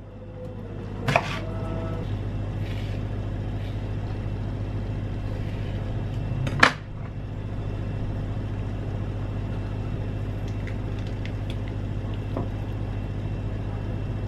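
Two sharp knocks of a kitchen knife against a plastic cutting board, about a second in and again midway, over a steady background hum.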